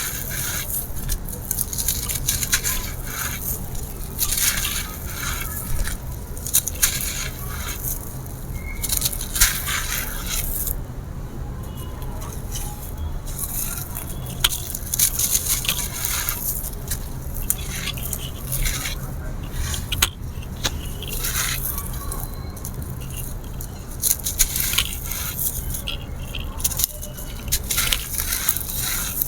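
Dry grey concrete mini slabs being crumbled and crushed, making irregular crisp crunches and gritty crackling, over a steady low hum.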